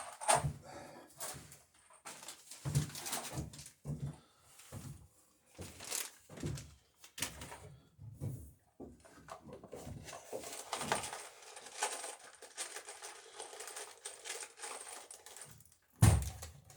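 Irregular knocks, clicks and footsteps as nails are gathered up in a small workshop, with one louder thump near the end.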